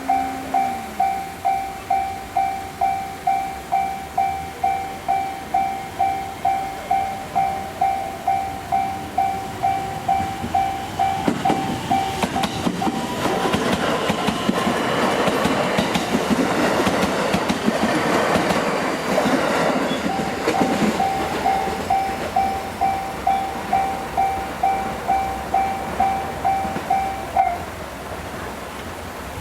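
Japanese level-crossing electronic alarm bell ringing in an even two-tone clang about twice a second. About eleven seconds in, a JR Hanwa Line train passes over the crossing for roughly nine seconds, its wheel and rail clatter drowning the bell. The bell then rings on alone until it stops near the end.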